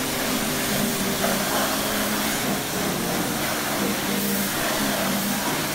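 Pressure washer running, its water jet hissing steadily against a car's bodywork.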